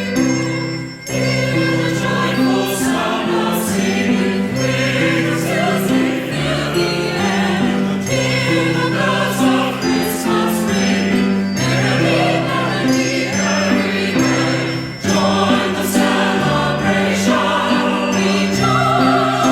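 Choir singing a Christmas anthem with instrumental accompaniment and bells ringing, with a brief break about a second in.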